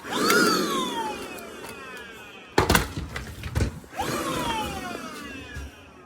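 Vacuum cleaner motor switched on for a moment and then let go. It whines up quickly and winds down in a falling whine over about two seconds. It does this twice, with a few loud knocks of handling between the two.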